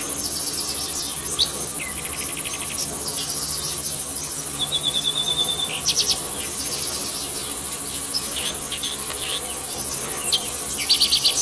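Steady high-pitched insect chorus, with short bird chirps and trills scattered through it and a quick cluster of chirps near the end.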